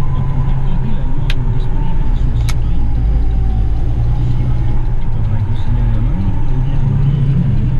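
Dump truck's diesel engine droning steadily under way, heard from inside the cab, with two sharp clicks about one and two and a half seconds in.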